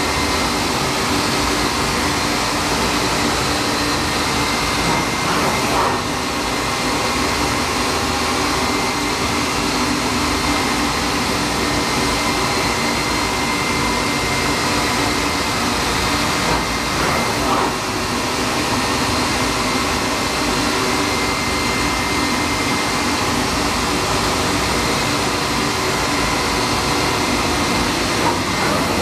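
WEEKE CNC woodworking machining center running: a steady mechanical whirring noise with a thin, high whine held on one pitch.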